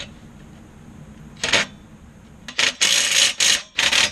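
Ratchet wrench clicking in short runs as exhaust flange bolts are spun in and tightened: one brief run about a second and a half in, then longer runs from a little past halfway to the end.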